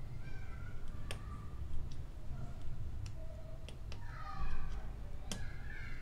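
A few sharp clicks as the iPhone 7 Plus's flex-cable connectors are pressed onto the logic board, with a cat meowing, loudest about four seconds in and again near the end.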